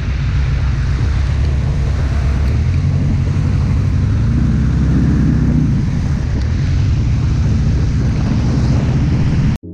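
Four-cylinder trike riding on a rain-soaked road: heavy wind buffeting on the microphone over the engine's low drone and the hiss of tyres on the wet surface. It cuts off abruptly near the end.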